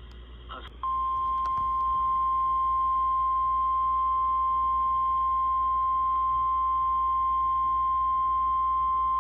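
NOAA Weather Radio warning alarm tone, a single steady high-pitched beep near 1050 Hz that comes in just under a second in and holds, over faint radio hiss. It is the alert that signals a new warning is about to be broadcast.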